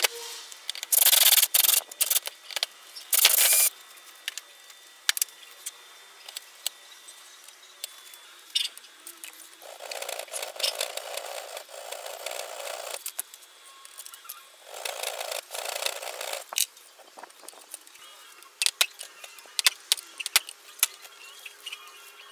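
Hand file rasping on steel clamped in a bench vise, in several bouts of strokes, with small metal clicks and knocks between the bouts as the part is handled in the vise.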